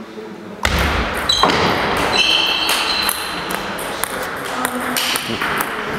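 Table tennis ball clicking against rubber bats and the table in a doubles rally, ringing in a large hall. The sound grows suddenly louder about half a second in.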